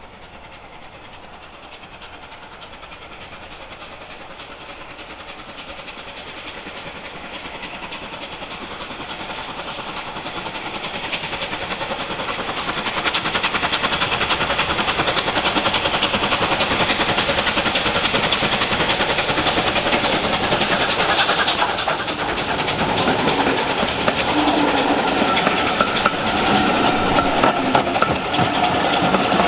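Bulleid Battle of Britain class steam locomotive 34072 '257 Squadron', a three-cylinder light pacific, working hard up a gradient with five coaches: its exhaust beats grow steadily louder as it approaches and are loudest as it passes, about two-thirds through. Then the coaches roll by with clicking wheels and a steady ringing tone.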